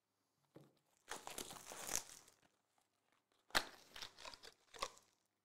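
Plastic wrap crinkling and tearing as a Topps Finest trading card hobby box is unwrapped and opened: one crinkling stretch of about a second and a half, then three short sharp crackles.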